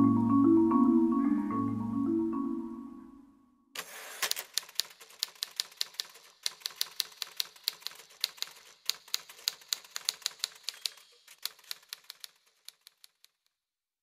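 Background music fades out over the first three seconds. Then typewriter keys clack in quick runs, thinning to a few last keystrokes and stopping shortly before the end.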